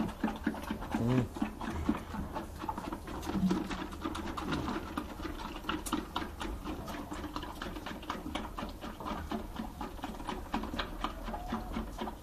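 Goat kids suckling from the teats of a bucket feeder: a rapid, overlapping run of sucking and smacking clicks, many a second.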